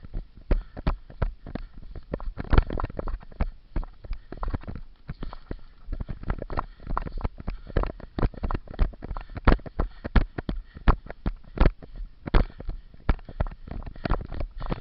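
Rapid, uneven thumps and rustling from a player moving on foot, with footsteps and gear jostling against a body-worn camera.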